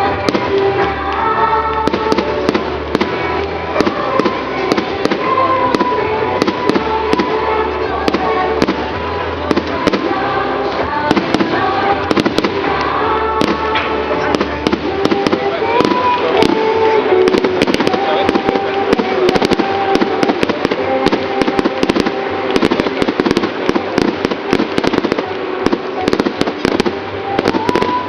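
Fireworks display: a rapid run of bangs and crackles over music with steady held notes, the bangs coming thicker in the second half.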